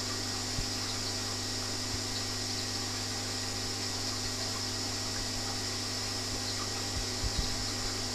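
Aquarium pump running with a steady hum and hiss, and a few soft low thumps, most of them near the end.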